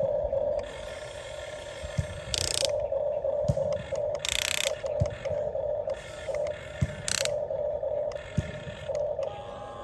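Electric gear motors of a Huina 1550 RC excavator whirring in short on-and-off runs as its functions are worked, with light clicks and a few brief harsher rattles of its gears.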